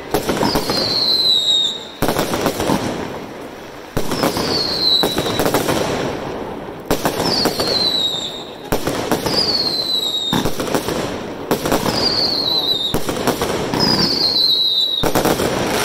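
Aerial fireworks firing one after another, about every one to two seconds. Each shot is a sharp bang followed by a crackle, and most carry a short, high whistle that falls in pitch.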